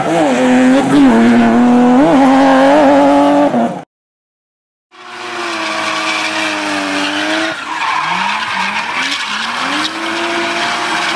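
Sports car engines revving hard while drifting, with tyre squeal. The sound cuts out to silence for about a second just before the middle, then another car's engine revs up again, rising in pitch several times.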